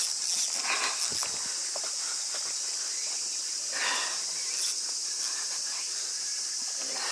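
Steady high-pitched chorus of summer insects, with a few soft scuffs near the start and again about four seconds in.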